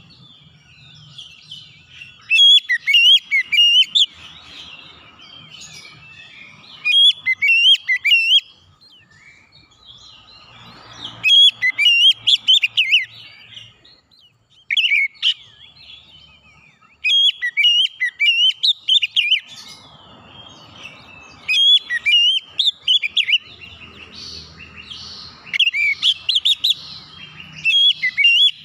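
Male Oriental magpie-robin (kacer) singing its loud calling song: phrases of quick, varied whistled notes, with short pauses of a second or two between phrases.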